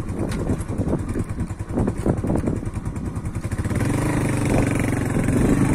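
A small engine running close by, chugging unevenly at first, then settling into a steadier, slightly louder note about four seconds in.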